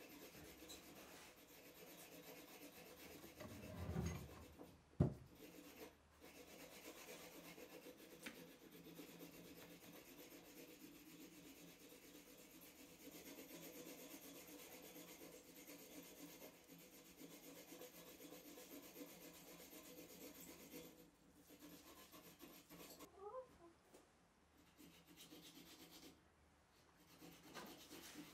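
Faint steady rubbing and scraping on a bench vice's metal parts as they are rubbed down by hand. A louder scrape comes just before a single sharp knock about five seconds in.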